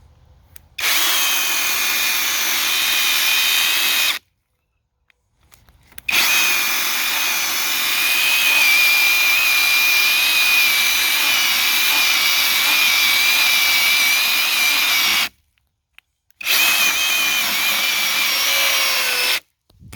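Battery-powered electric chainsaw (Dejunpool, on a DeWalt battery) cutting through a small tree trunk: a steady high motor and chain whine. It runs in three stretches, the middle one about nine seconds long, each starting and stopping abruptly with short silences between.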